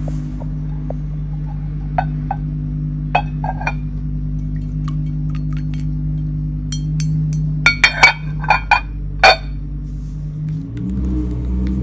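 Light clinks of a brush and paint dishes on a ceramic palette during colour mixing. A few scattered clinks come first, then a louder cluster of about six in quick succession around eight seconds in. Soft sustained background music plays under them.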